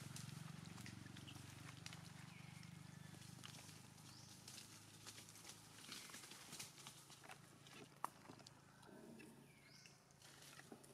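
Faint outdoor ambience among trees: a steady low hum with a few short rising chirps and scattered light clicks, including one sharper click about eight seconds in.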